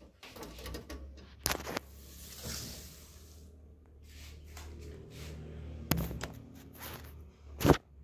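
Handling noise: rustling and a low rumble broken by several sharp knocks, the loudest near the end.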